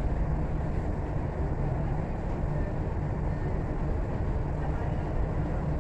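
Steady low rumble and hum inside a Dubai Metro train carriage, with no distinct events.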